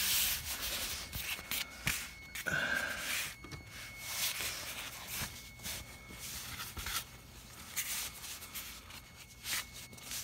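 Blue paper shop towel crinkling and rubbing, with scattered taps and scrapes on cardboard, as it is wrapped over a wideband O2 sensor for a brake-cleaner rag test.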